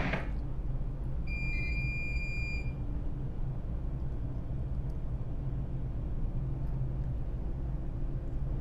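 ASD tug's engines running steadily at full push, a deep even rumble. An electronic alarm-like beep sounds for about a second and a half near the start.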